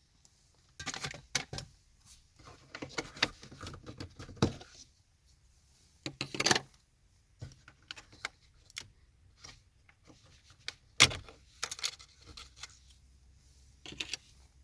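Plastic instrument-cluster trim cover on a Tofaş Doğan dashboard being pried and unclipped by hand: scattered clicks, rattles and scrapes in short clusters, with one sharp click about eleven seconds in.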